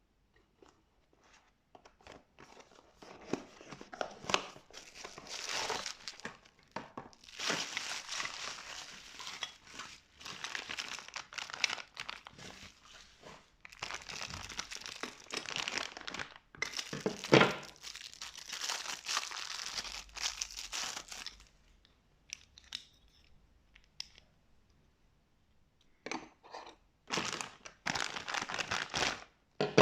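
Packaging being unwrapped by hand: plastic and paper wrapping crinkling and tearing in bursts with short pauses, a louder crunch just past halfway, and a quieter stretch about two-thirds through.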